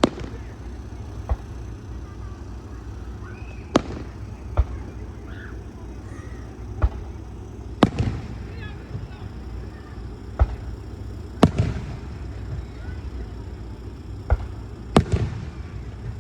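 Aerial fireworks shells bursting: about ten sharp booms at uneven intervals, the bigger ones trailing off in a rolling echo.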